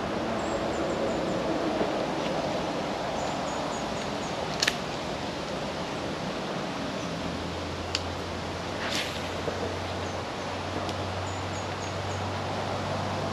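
Steady outdoor creekside noise with a small bird calling several times in quick runs of short high notes, and a few sharp clicks. A low steady hum joins about halfway through.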